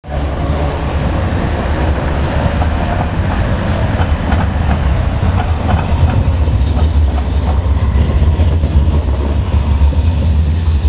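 Articulated tram passing at close range, its wheels clicking over the rails above a loud, steady low rumble.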